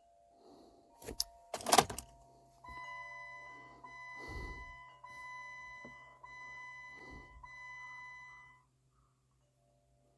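Two sharp clicks, then the 2010 Jeep Compass's electronic warning chime sounding a steady tone about five times in a row over a low electrical hum, as the car fails to start.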